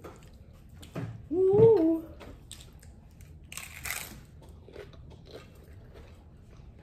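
A short hummed voice sound, rising then falling, about a second and a half in. Near the four-second mark comes a sharp crunch as a hard taco shell is bitten, followed by soft chewing.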